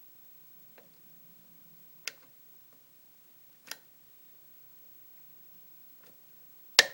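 Pins in a pin-tumbler challenge lock clicking as they are single-pin picked with a hook pick under tension: about five sharp clicks a second or more apart, the loudest near the end, a pin setting at the shear line.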